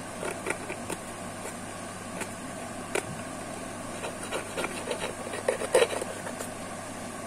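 Fingernail and then steel tweezers scraping and picking at the border of a Vivo Y91 phone mid-frame to clear old adhesive and dirt, giving small irregular scratches and clicks that are loudest about six seconds in, over a steady low hum.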